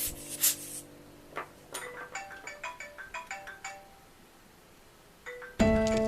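Background music: a chord fades out, then a sparse run of short chime-like notes, a brief lull, and a louder, fuller section comes in near the end.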